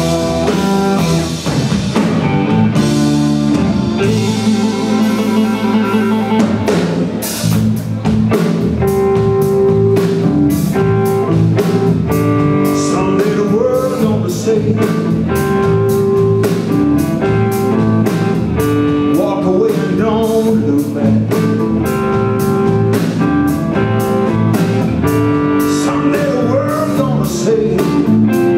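Live blues-rock band playing: a Stratocaster-style electric guitar, drum kit, bass and Hammond organ with held chords, and a man singing at times. A steady drum beat runs through most of it.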